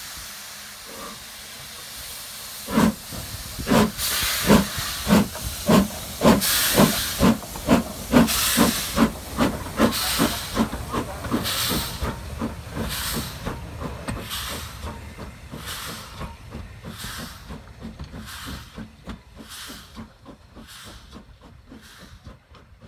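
Steam locomotive starting away, its exhaust beats quickening from slow, separate chuffs into a steady rhythm with steam hiss. The chuffs then grow gradually fainter as the engine draws off.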